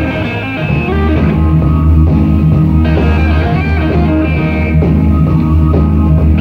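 Live blues-rock band playing an instrumental: electric guitar, keyboards, bass guitar and drums.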